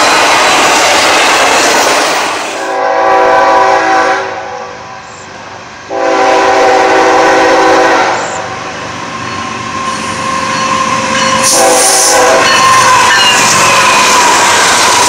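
A train passing at speed with a loud rushing rail noise, while a locomotive air horn sounds a chord in two long blasts and then a short one. The rail noise swells back near the end.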